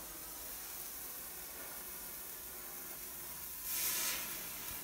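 A handheld sparkler burning with a steady fizzing hiss, which swells louder for about half a second near the end.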